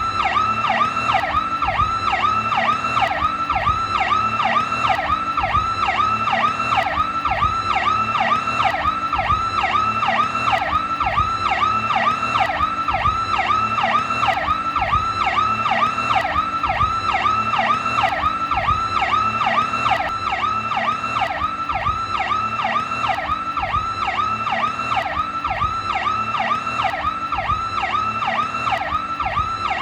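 Federal Signal PowerCall electronic police siren sounding its fast warbling tone, sweeping up and down in pitch about three times a second without let-up.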